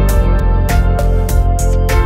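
Background music with a steady beat, a little under two beats a second, over held tones.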